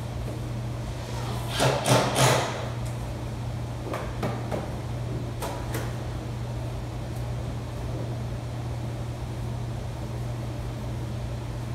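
Cardboard shipping box being handled and packed: a loud scraping burst in three quick surges about two seconds in, then a few lighter taps and scrapes, over a steady low hum.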